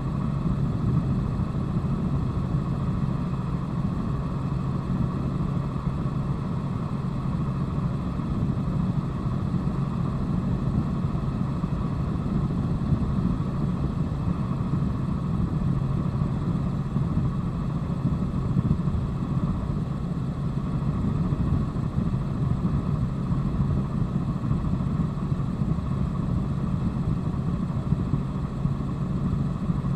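Steady drone of a helicopter's engine and rotor, heard from inside the cabin in flight.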